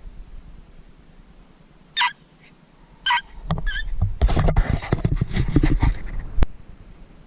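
Two short, high yips from a Jack Russell terrier, about a second apart, followed by a few seconds of close scuffling and rustling that ends in a sharp click.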